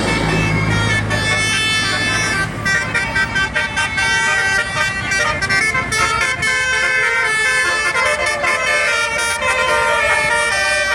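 Bus's basuri "telolet" musical horn playing a tune of quickly changing multi-tone notes. A low engine hum runs under it for the first couple of seconds.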